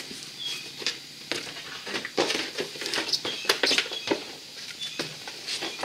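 Irregular clicks, knocks and scraping of a plastic inner fender liner being handled and worked back into the wheel well. A short high chirp recurs about once a second.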